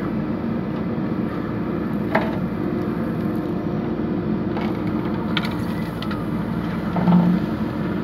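JCB backhoe loader's diesel engine running steadily as the backhoe digs and swings, with a few sharp knocks from the working arm and bucket and a brief louder surge near the end.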